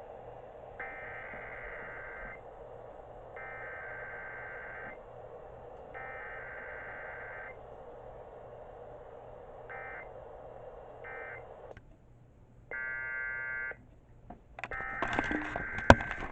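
Emergency Alert System SAME header data bursts broadcast over KDKA radio: three buzzy, warbling digital tone bursts of about a second and a half each, a second apart. Two shorter bursts follow, then a brief chord of stacked tones. A louder noisy stretch with a sharp click comes near the end, all over a steady low hum from the radio.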